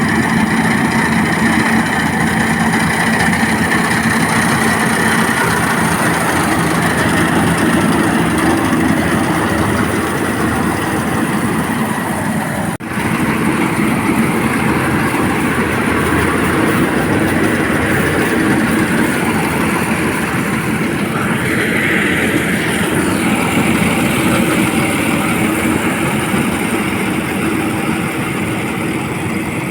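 Paddy harvesting machine running steadily and loudly, its engine tone under a dense mechanical noise, with a brief drop about halfway through.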